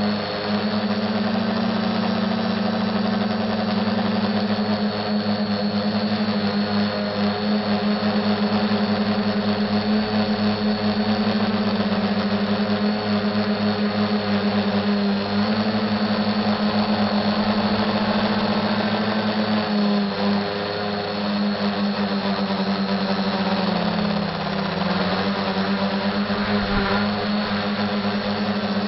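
SK450 dead-cat quadcopter's electric motors and propellers whirring steadily up close, a loud even hum that dips in pitch briefly about two-thirds of the way through and again a few seconds later as the throttle eases.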